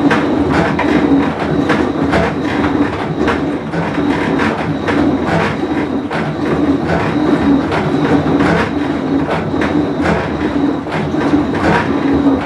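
Whirlpool Cabrio top-load washing machine running with a steady loud drone and continuous irregular rattling clatter, the noise of a bad tub bearing.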